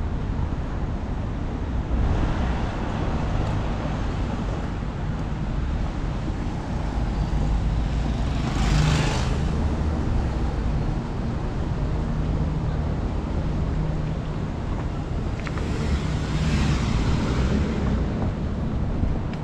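City road traffic: a steady low rumble of cars, with a vehicle passing close about eight seconds in and another about three-quarters of the way through.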